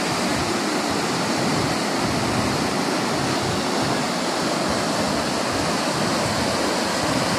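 Fast-flowing, muddy canal water rushing through the openings of a canal bridge and churning white against its brick piers, a steady, unbroken roar.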